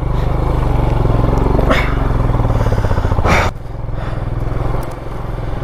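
Motorcycle engine running steadily under way over a rough, unpaved mountain track, with two brief rattles. About three and a half seconds in the engine note drops and carries on more quietly, as the throttle eases off.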